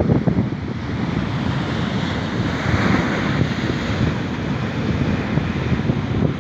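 Sea waves washing onto a beach, a continuous surf rush that swells briefly in the middle, with wind buffeting the microphone.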